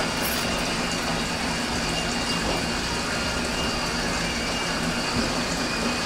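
Steady indoor background hum with a constant rushing hiss, as of running machinery such as fans or water pumps, with no change throughout.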